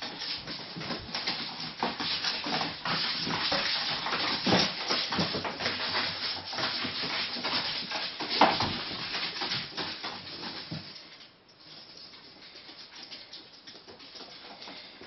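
Ferrets scrabbling in and against a cardboard box, their claws scratching and rubbing the cardboard with many small knocks as the box shifts. The scratching stops about eleven seconds in, leaving only faint scuffling.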